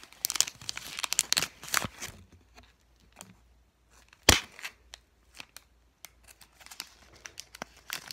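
Foil Pokémon trading-card booster pack crinkling and being torn open in irregular bursts, with one sharp loud click about four seconds in.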